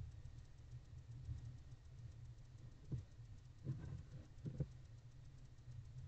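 A few faint rustles and scratches from a barn owl preening, clustered about three to four and a half seconds in, over a steady low hum and fine ticking.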